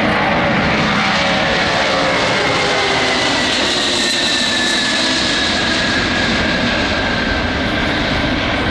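An Antonov An-124 Ruslan's four D-18T turbofan engines climbing out just after take-off: loud, steady jet noise with a high whine that slowly falls in pitch as the aircraft passes and moves away.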